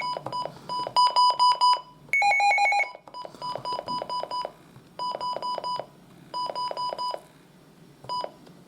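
Midland WR300 weather radio beeping as its buttons are pressed during setup: quick runs of short electronic key beeps, several a second, broken by short pauses, with a brief higher-pitched run of beeps about two seconds in.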